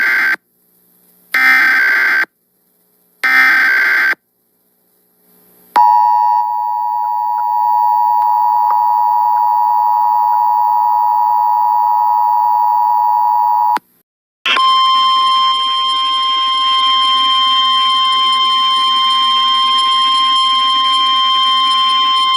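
Emergency Alert System tones for a flash flood warning. It begins with the tail of one burst of SAME digital header data and two more bursts, about two seconds apart. Then the two-tone EAS attention signal holds steady for about eight seconds, and after a brief gap a single steady alarm tone with hiss under it follows, like NOAA Weather Radio's warning alarm.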